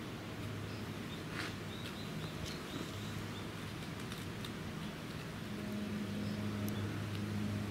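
Low steady mechanical hum that grows louder about five and a half seconds in, with a few faint high chirps and light clicks around the second and third seconds.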